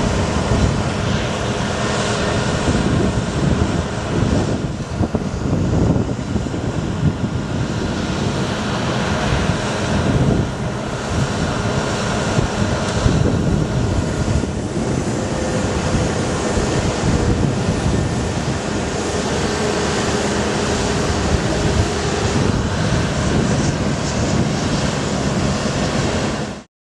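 Bucket truck engine running to power the hydraulics while the Altec aerial boom is lowered and stowed, mixed with heavy wind noise on the microphone. The sound cuts off suddenly near the end.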